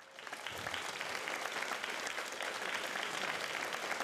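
Audience applauding: the clapping starts suddenly, swells over the first half second, then holds steady.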